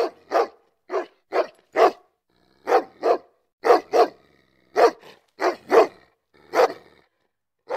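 A dog barking, about a dozen short single barks, several coming in quick pairs, with brief pauses between.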